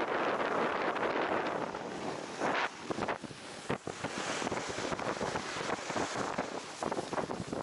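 Snowboard sliding and carving through soft snow, a steady hiss with short rushes as the edge bites, one louder about two and a half seconds in. Wind buffets the microphone.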